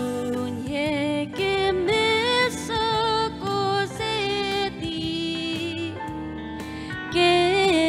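A woman singing a slow song solo into a microphone over sustained accompaniment, holding long notes with vibrato.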